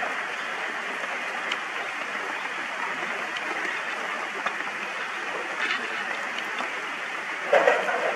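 Heavy rain falling: a steady, even hiss of rain. A brief voice-like call sounds near the end.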